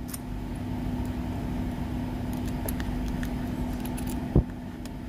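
Keys jangling and light metal clicks as a key is handled at a stainless-steel lock, with one sharp click about four seconds in, the loudest sound. A steady low motor hum runs underneath.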